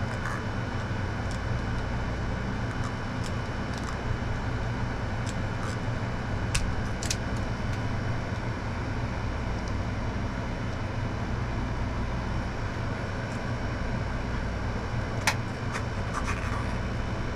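Steady low rumble, with a few sharp clicks from small hand tools while electrical wires are stripped and joined. The loudest click comes near the end.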